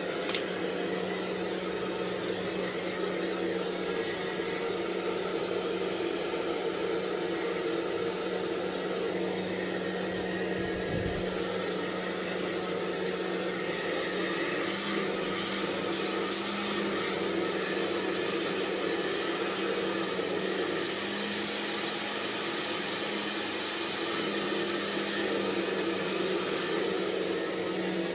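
Hand-held hair dryer blowing steadily: an even rushing hiss over a low motor hum, which rises slightly in pitch about halfway through.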